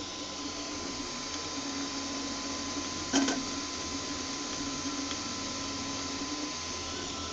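eMAKER Huxley RepRap 3D printer laying down its first layer: its stepper motors run with a steady buzzing hum that changes pitch in steps as the print head changes direction. A single sharp click about three seconds in.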